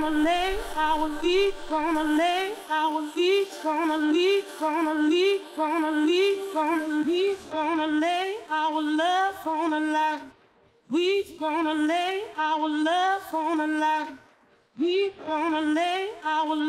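A singing voice isolated from a full mix by LALAL.AI's AI stem separation on its aggressive setting, singing a repeating melodic phrase with two short breaks, about ten and fourteen seconds in.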